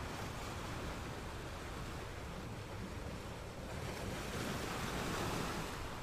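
Ocean waves washing in, with one swell building about four seconds in and easing off near the end.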